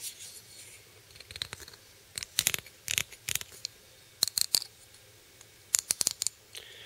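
A fingernail dragged across the ridged surface of a milled knife handle scale, giving several short passes of quick clicking. The clicks are the nail catching on the ridges between the cutter's passes, left because the milling machine is out of tram.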